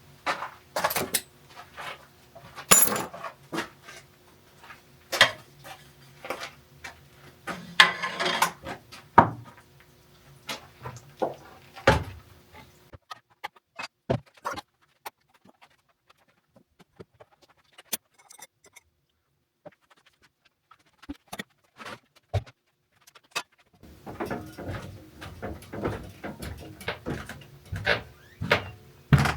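Hard objects being handled: a string of clinks, knocks and rattles, with a low steady hum under the first half that stops about thirteen seconds in. The middle goes nearly quiet with only a few single ticks, then close-set clattering picks up again near the end.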